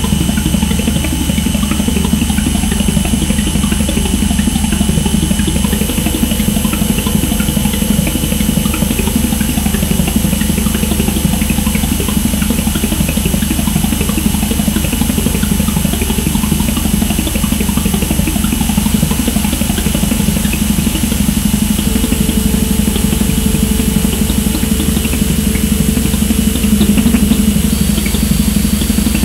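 Experimental electronic drone music: a dense, steady low rumble with a grainy, engine-like texture under thin sustained high tones. A mid tone comes in about six seconds in and drops out, another enters past twenty seconds, and near the end one high tone gives way to a higher one.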